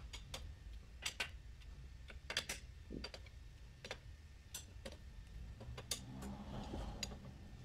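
Light, irregular metal clicks and taps as a long steel rod is worked along a Yamaha Xeon scooter's transmission case, about one to three a second.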